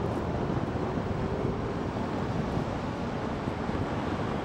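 Steady wind rush on the microphone and tyre noise from a Zero DSR electric motorcycle riding at speed on the road, with no engine sound.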